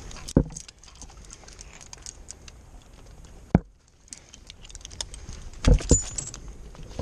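Metal climbing hardware clinking and jangling as an arborist climbs a tree, with a few dull knocks, the loudest pair near the end.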